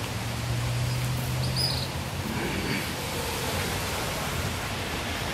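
Steady outdoor background noise, an even hiss, with a low hum during the first two seconds and a brief high chirp about a second and a half in.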